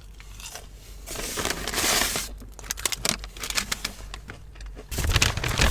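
Paper fast-food bag and wrappers rustling and crinkling as the food is taken out and unwrapped, in irregular handling noises, with a louder rustle near the end.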